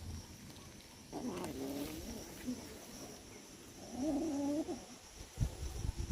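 Domestic cat meowing twice, two wavering calls of about a second each, with low thumps and rustling starting near the end.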